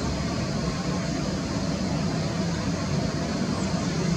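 Boeing 737 MAX 8's CFM LEAP-1B turbofan engines running at low taxi power while the airliner taxis: a steady, even noise that does not change in pitch or level.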